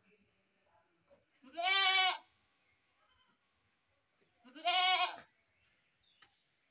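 Goat bleating twice, about three seconds apart, each call under a second long with a pitch that rises and then falls.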